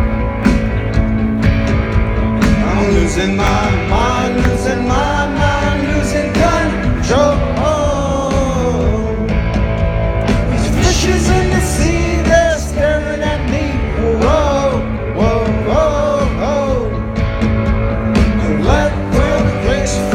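Rock band playing live, with a sung melody gliding over guitars, bass and drums.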